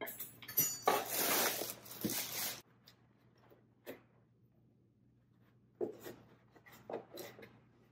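A drum lampshade being handled and a part taken off it: a couple of seconds of loud rustling and scraping, then a few light clicks and taps.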